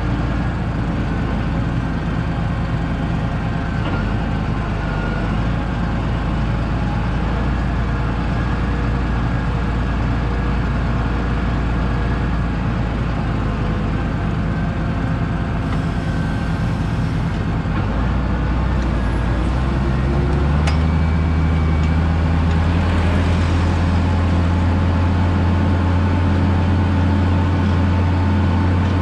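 Tractor diesel engine running steadily, then revving higher about two-thirds of the way through and holding there a little louder.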